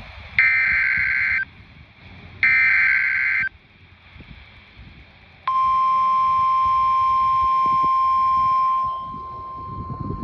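Two harsh, buzzing digital data bursts of an Emergency Alert System SAME header, each about a second long and a second apart. About five seconds in, the steady 1050 Hz weather radio attention tone starts abruptly and keeps sounding, dropping in level near the end. Together they signal the start of a new warning broadcast.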